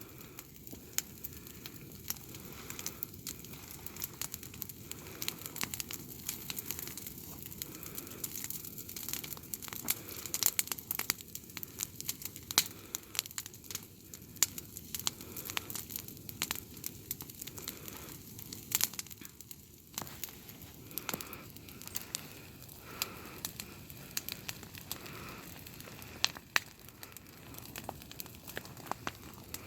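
Dying campfire crackling: many small, irregular snaps and pops.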